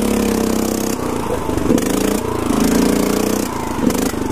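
Mud mower's small riding-mower engine running hard and revving. Its pitch holds, drops off and comes back up several times.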